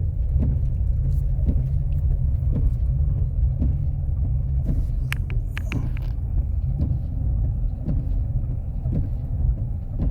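Steady low rumble of a car driving up a snow-covered hill, heard from inside the cabin, with a faint click about once a second.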